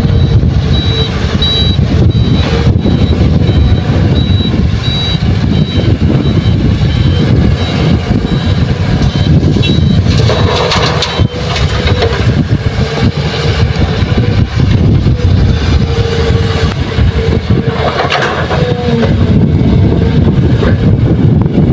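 Heavy diesel engines of an excavator and dump truck running under load, with short high warning beeps in the first few seconds. There are two louder rough surges, about ten and eighteen seconds in.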